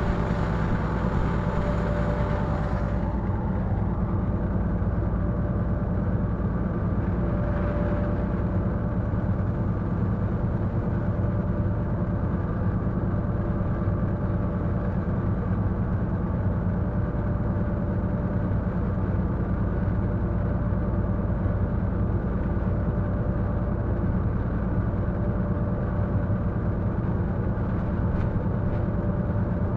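Diesel locomotive engine running steadily under load while hauling a heavy freight train of about 1100 tonnes, heard from the locomotive. It is a constant drone with a steady higher hum above it.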